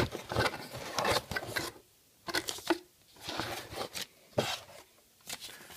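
Packaging being handled by hand: irregular rustling and rubbing with small clicks, in short bursts with brief pauses between.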